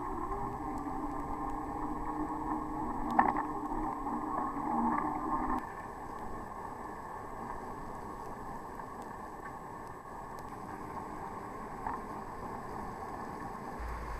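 Muffled riding and traffic noise on rain-soaked streets, with a steady hum and a single knock about three seconds in. The hum stops abruptly about five and a half seconds in, leaving a duller steady rush.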